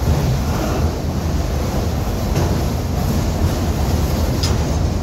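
Autorack freight cars rolling past: a steady rumble of steel wheels on rail, with a few sharp clicks, the sharpest near the end.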